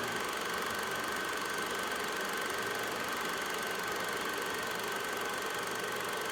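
Steady machine hum with a constant high-pitched whine, unchanging throughout.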